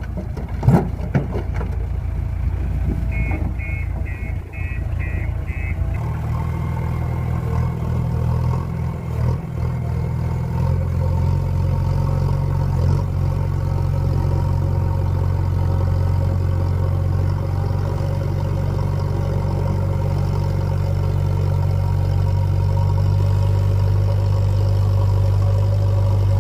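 Diesel engine of a JCB 3DX backhoe loader running steadily with a low, even drone. A short run of about six quick high beeps comes a few seconds in.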